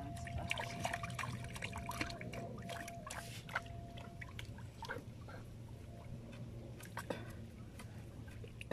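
Water splashing and sloshing as a person wades chest-deep through a flooded rice paddy. The splashes are busiest in the first few seconds and thin out later.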